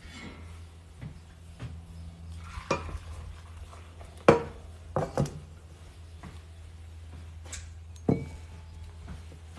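Ceramic bowls and dishes being set down on a table and knocking together: a handful of separate clinks and knocks, the loudest about four seconds in, over a steady low hum.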